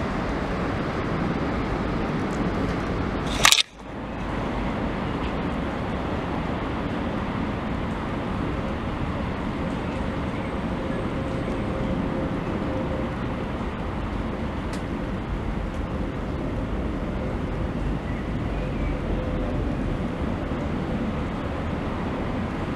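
Steady outdoor background rumble and hiss, with one sharp bump about three and a half seconds in and a brief drop-out right after it.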